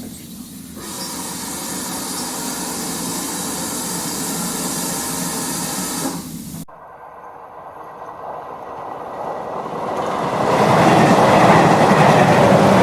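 Dubbed train sound effect: a passing train's rumble and wheel noise that cuts off abruptly about halfway through, then another train building up loud near the end.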